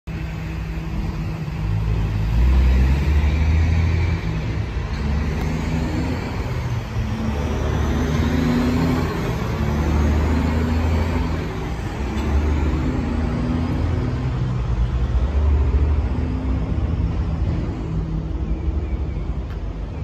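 Steady low hum of an engine running, with uneven low rumble swelling and fading several times.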